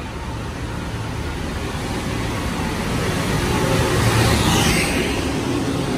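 Metro-North M3A electric multiple-unit train pulling into the station and rolling past close by. Its rumble grows steadily louder, peaking about four seconds in with a brief hiss as the cars pass.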